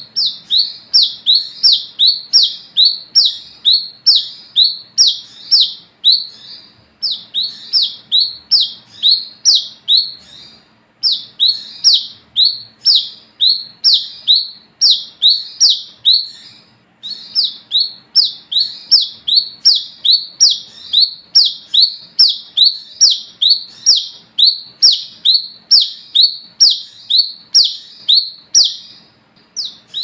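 Brown-throated sunbird (kolibri kelapa) calling its 'wiceh' call: a rapid, steady series of sharp, high, down-slurred notes, about three a second, in long bouts broken by brief pauses.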